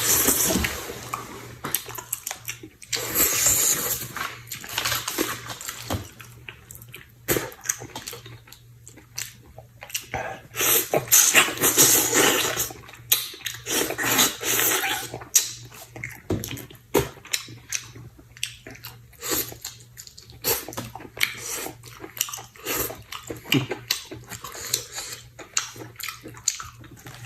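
A person eating stewed chicken with mushrooms: chewing, lip-smacking and slurping in many short, irregular bursts, with a few longer slurps.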